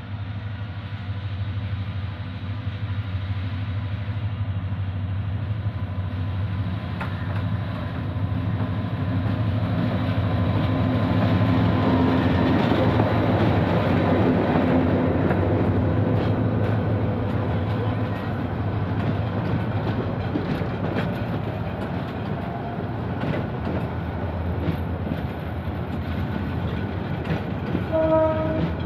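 Diesel locomotive of a Bangladesh Railway intercity train drones past, and a long line of passenger coaches follows, rolling by with a steady rattle and clatter of wheels over the rail joints that is loudest about halfway through. A short pitched call sounds near the end.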